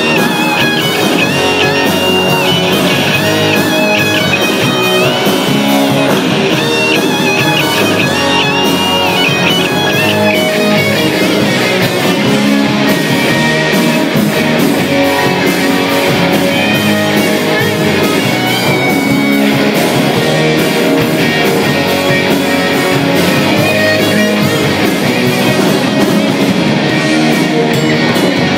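Live rock band playing loudly: electric guitars over bass and drums, with a high lead guitar line over roughly the first ten seconds.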